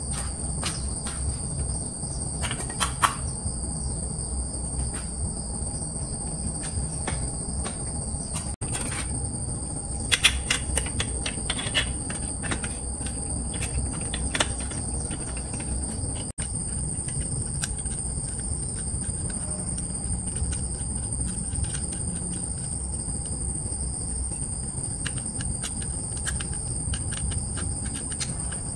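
A steady, high-pitched insect chorus runs under scattered metallic clicks and clinks. The clicks come from a bicycle wheel being fitted and its axle nut being worked with a wrench, and are loudest about three seconds in and again around ten seconds.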